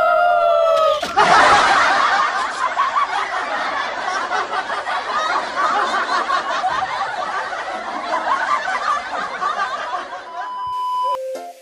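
A held sung note ends about a second in, then a group of people laughs for about nine seconds. The laughter stops suddenly near the end, followed by a short steady beep tone.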